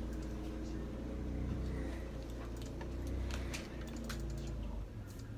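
A computer keyboard clicking a few times as keys are tapped, over a steady low hum that drops away near the end.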